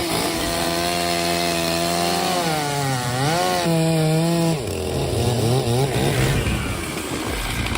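Chainsaw running at high speed with a steady pitch. About three seconds in, the pitch dips and climbs back, and about halfway through that note gives way to a lower, wavering engine note.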